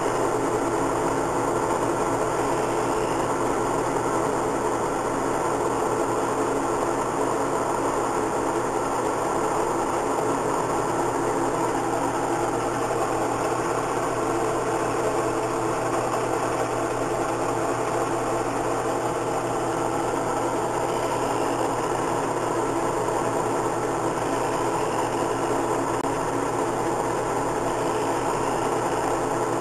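CNC milling machine running steadily, its spindle motor and cutter working through a programmed cut.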